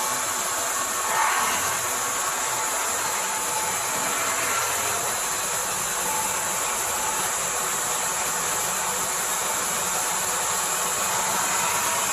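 Mini auto-feed CNC wood-turning lathe making an internal cut, its tool boring into a spinning wooden blank: a steady high hiss of cutting and motor whine, with a brief louder swell about a second in.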